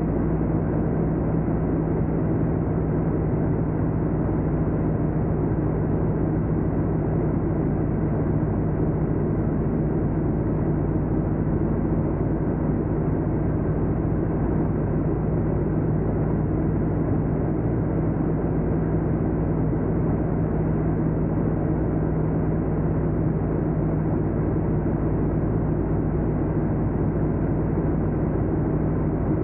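Steady drone of a BT-13 Valiant's Pratt & Whitney R-985 Wasp Junior radial engine and propeller, holding an even pitch and level.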